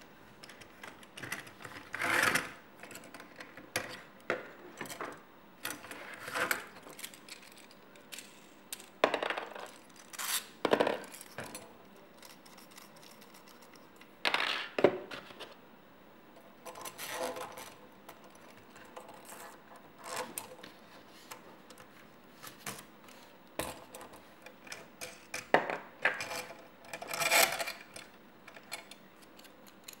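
Plastic side-release buckles and metal parts of a paracord jig clicking and clattering as they are unclipped, handled and set down: irregular clicks and knocks, a few of them louder.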